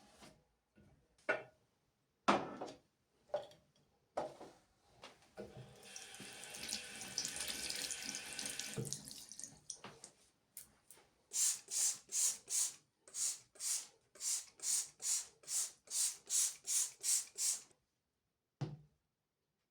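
A few handling knocks, then a water tap runs into a sink for about four seconds and is shut off. After that comes a steady run of about sixteen short, hissy swishes, roughly two a second, typical of sink cleaning.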